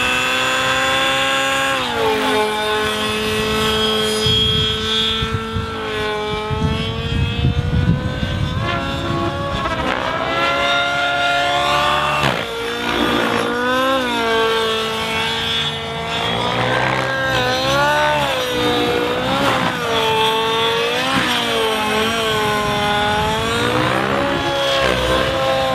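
SAB Goblin 700 nitro RC helicopter's glow engine and rotor running at high revs. The pitch holds fairly steady at first, then from about nine seconds in dips and recovers again and again as the helicopter is pushed through hard aerobatic manoeuvres.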